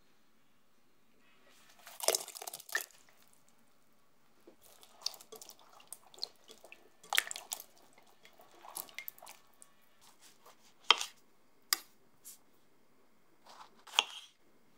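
Strawberries being washed by hand in a glass bowl of water: short bursts of splashing and dripping, with a few sharp knocks. Near the end, a knife slices through a strawberry onto a wooden cutting board.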